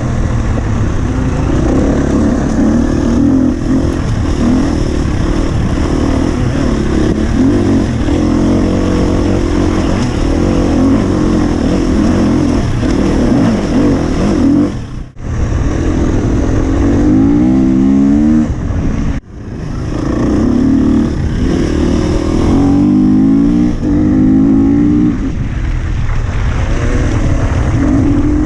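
Husqvarna FE 250 four-stroke single-cylinder enduro motorcycle engine under way, revving up and down as it is ridden, with pitch climbing several times as it pulls through the gears. The sound cuts out for an instant twice about halfway through.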